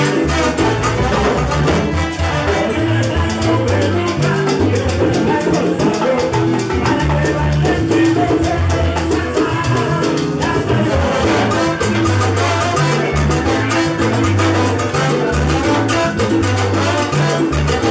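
Live salsa band playing a steady groove with upright bass, trombones, trumpet and hand percussion, and a male sonero singing lead.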